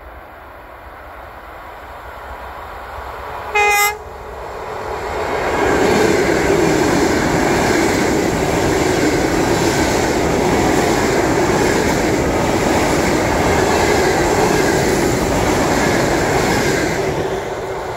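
ED4M electric multiple unit approaching and giving one short horn blast about four seconds in, then passing close by with a loud steady rush and clatter of its wheels on the rails, falling away near the end.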